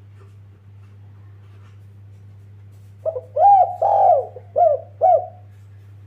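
Spotted dove (tekukur) cooing: after a pause, one phrase of about five short, arched coos, starting about three seconds in. A steady low hum runs underneath.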